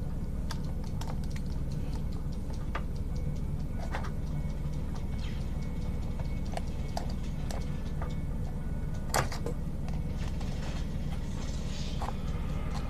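Flathead screwdriver scraping and prying at the cement that seals a Maxtor 7120AT hard drive's cover: scattered small clicks and scrapes of the tool on the casing, with one sharper click about nine seconds in, over a steady low hum.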